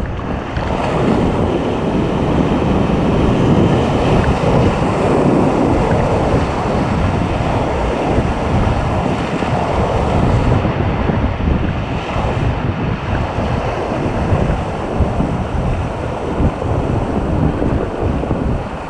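River water rushing steadily around a paddle raft, with wind buffeting the microphone.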